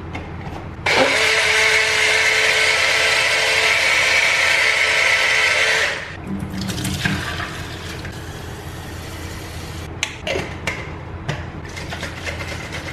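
Small portable rechargeable bottle blender running with water inside to rinse it out, starting about a second in, a steady whine that cuts off suddenly after about five seconds. Quieter handling noise with a few sharp clicks follows.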